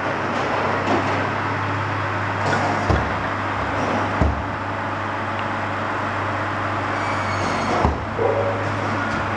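Tractor-driven firewood processor running with a steady low drone, and split logs knocking as they drop into a steel crate about three and four seconds in and again near the end.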